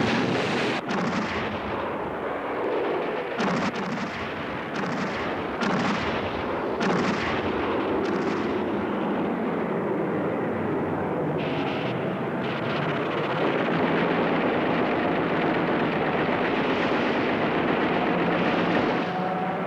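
Anti-aircraft gunfire and explosions: a dense, continuous barrage with sharp single shots standing out, most of them in the first seven seconds.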